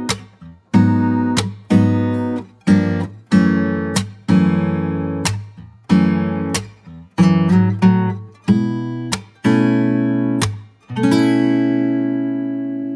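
Background music: acoustic guitar chords strummed one at a time, each ringing out and fading before the next, with a longer held chord near the end.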